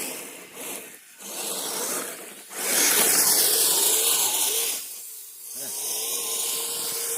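Electric motors of radio-controlled Kyosho Blizzard tracked snow vehicles whining in throttle bursts as the tracks churn through deep, loose snow. A loud hissing burst runs from about two and a half to five seconds in, then a steadier whine.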